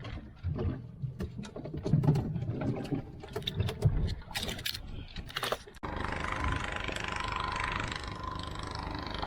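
A run of irregular sharp knocks and low thuds. About two-thirds of the way through it cuts suddenly to a steady rushing noise with a faint held tone in it.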